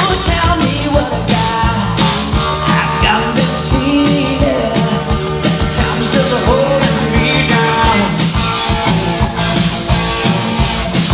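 An 1980s pop-rock song played over the sound system: a singer over a steady drum beat and instruments.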